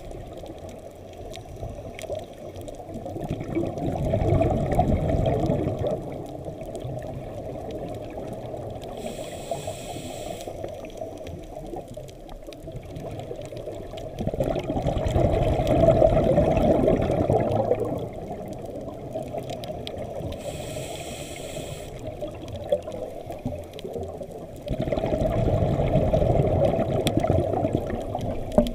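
Scuba diver breathing through a regulator, heard underwater: a short hiss on each inhale and then several seconds of rumbling exhaled bubbles. It happens three times, about ten seconds apart.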